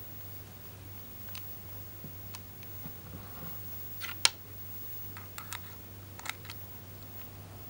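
Handling noise of a Dremel Stylus cordless rotary tool with its motor off: scattered small clicks and taps at its nose as an accessory is fitted. The sharpest click comes about four seconds in.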